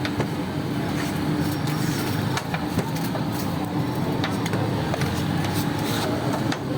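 Street-stall ambience: a steady low mechanical hum with many short, sharp clicks and clinks scattered through it.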